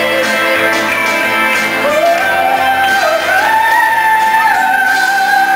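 Woman singing live into a microphone over instrumental music, her voice stepping up through a couple of notes about two seconds in and then holding a long high note.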